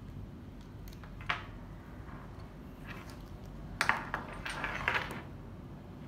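Metal clicks and clinks from a camera strap's quick-release hardware as a DSLR camera is handled and set down on a wooden table. There is one sharp click a little over a second in, then a cluster of clinks and rattles around four to five seconds in.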